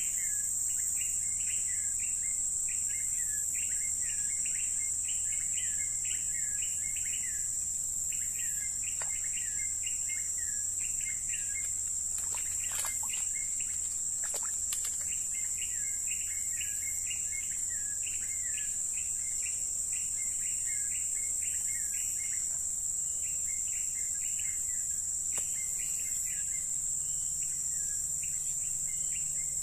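A steady high-pitched insect drone, with a bird repeating short chirping phrases over it that stop for a few seconds about halfway through. A few faint clicks come during that pause.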